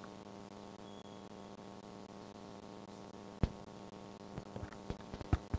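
Steady electrical hum from a live public-address system, with one sharp knock about three and a half seconds in and a few softer clicks near the end as the microphone is handled.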